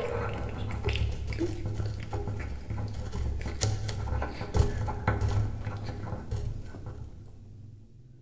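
Double bass played with extended technique in free improvisation: a low, uneven rumble under scattered scratchy clicks and rasps of bow and strings, fading away near the end.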